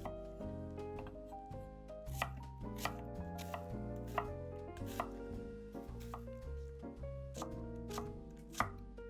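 Knife chopping food on a cutting board: irregular sharp strikes, several of them distinctly louder, over soft background music.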